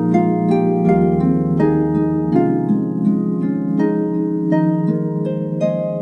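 Celtic harp music: plucked notes in a flowing melody, two or three a second, each ringing and fading, over low held bass notes that change every second or two.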